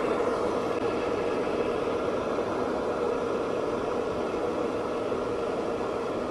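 COMFEE 1.7-litre stainless steel electric kettle heating water, making a steady rushing noise.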